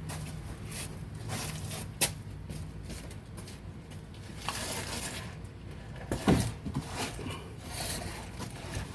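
Scattered clicks and knocks of hand work under a car while the engine oil drains from the drain plug hole, over a low steady hum. A sharp click comes about two seconds in and a louder knock about six seconds in.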